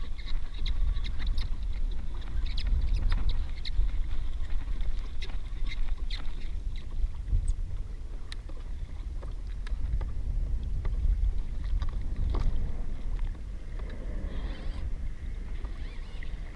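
Wind buffeting the microphone and water lapping against a kayak's hull, with scattered light clicks and knocks from fishing rods and gear being handled.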